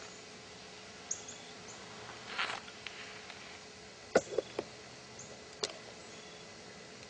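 Quiet outdoor ambience with a steady faint hiss, a few short high chirps, a brief rustle about two and a half seconds in, and a cluster of sharp clicks about four seconds in that are the loudest sounds, with one more click a second later.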